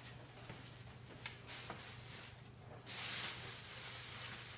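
Tap water running into a kitchen sink during dishwashing, a hiss that swells and fades and is loudest about three seconds in, with a couple of light clinks of dishes a little over a second in, over a low steady hum.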